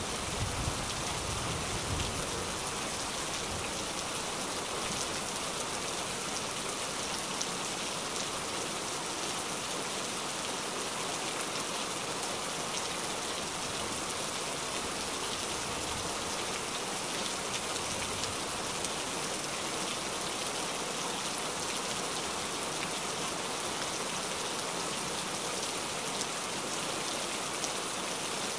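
Heavy rain falling steadily, a dense, even hiss of drops on a surface. A low rumble sits under it in the first two seconds.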